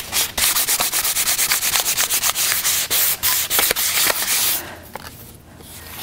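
400-grit sandpaper on a sanding block scrubbed in quick back-and-forth strokes over a shellac-sealed wooden printing block, about five strokes a second, knocking down the grain raised by the first coat. The strokes stop briefly near the end.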